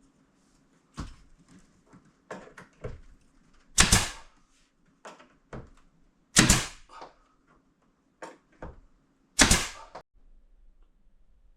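Newly fitted veranda door being opened and shut three times, each shut a loud bang, with smaller clicks and knocks of the handle and latch in between.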